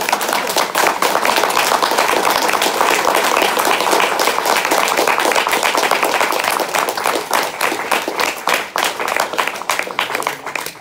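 Audience applause: many people clapping steadily and loudly, thinning out a little near the end.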